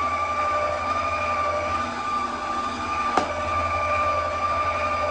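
Electric stand mixer motor running steadily with a high whine, beating stiff banana cake batter as milk is worked in. A single sharp click sounds about three seconds in.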